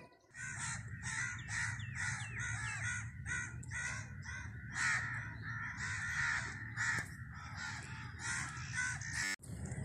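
A flock of birds calling continuously, many short overlapping calls several times a second.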